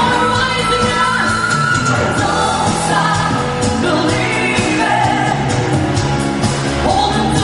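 A band playing a song: a singer over the instruments, with drum hits keeping a steady beat.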